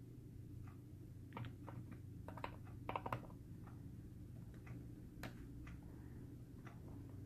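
Faint, scattered clicks and ticks of a small screwdriver working the post screws of a rebuildable atomizer deck as the coil leads are clamped down, with a quick run of clicks about three seconds in. A steady low hum runs underneath.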